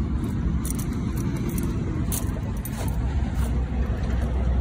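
Steady low rumble of road traffic, with a few faint scuffs of footsteps on gravelly grass in the first half.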